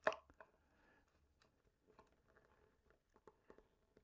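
Faint scattered ticks and scrapes of a small screwdriver turning a screw through a foam tail surface into a plastic control horn and its receiver plate, with one sharper click right at the start.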